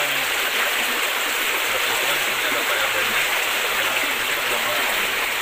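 Steady rush of muddy flash-flood water flowing swiftly past.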